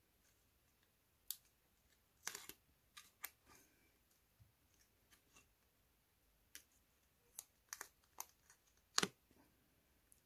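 Faint, scattered clicks and light rustles of cut cardstock pieces being handled, about nine separate small sounds, the sharpest click about a second before the end.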